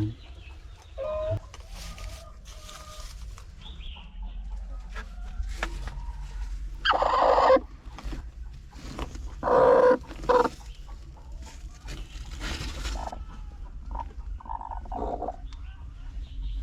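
Chickens clucking and calling, with two loud calls about seven and ten seconds in, over a steady low rumble.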